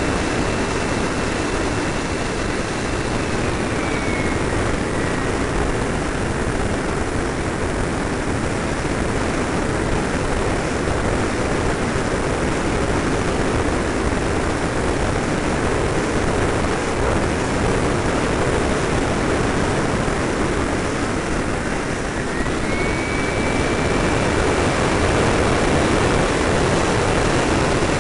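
Airflow rushing over a camera riding on a radio-controlled F-86 Sabre model jet in flight, with a thin high whine from the model's power unit. The whine drops away in pitch a few seconds in and climbs back up and holds about three-quarters of the way through, following the throttle.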